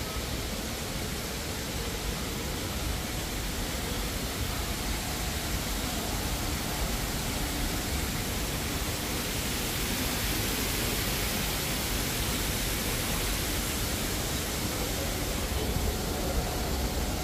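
A steady, even rushing hiss of ambient noise, getting slightly louder and brighter about halfway through.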